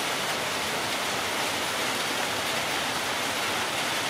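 Steady, even hiss of noise with no breaks or changes.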